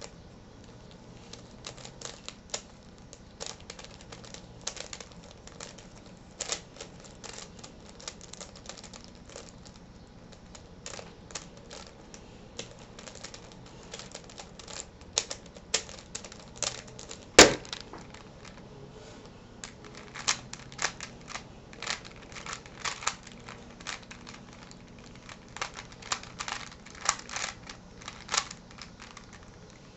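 A plastic twisty-puzzle cube being turned fast by hand during a speedsolve: irregular runs of quick plastic clicks and clacks with short pauses, and one sharp, much louder knock about halfway through.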